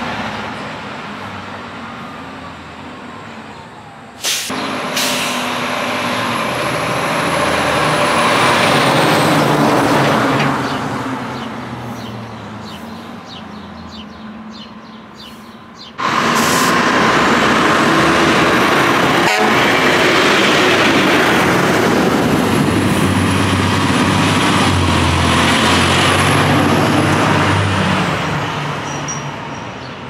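FDNY fire trucks driving past on an emergency response, sounding air horns and sirens over their running engines. It starts loud suddenly about four seconds in and again about sixteen seconds in, each time staying loud for several seconds and then fading.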